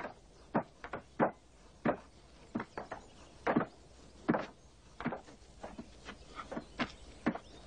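Hammers striking timber, a string of sharp, irregular knocks at roughly two a second, as a wooden frame is nailed together.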